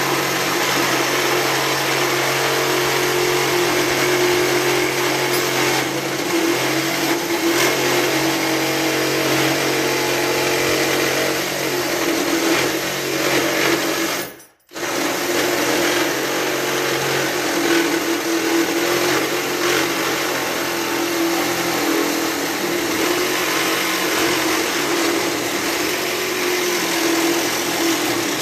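Electric power tool running at full speed, cutting through the thin tin bracket that holds a plastic bushing: a steady whine over a hiss. It stops for a moment about halfway through, then starts again and runs on.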